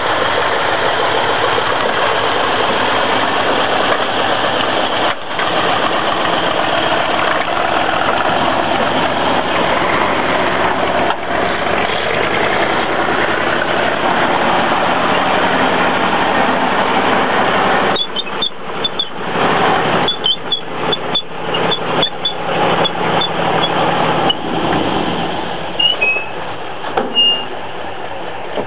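M4 Sherman tank running, its engine loud and steady as the tank drives off a trailer ramp and along a lane. About two-thirds of the way through, the sound turns choppy, with rapid clatter and a few short high squeaks.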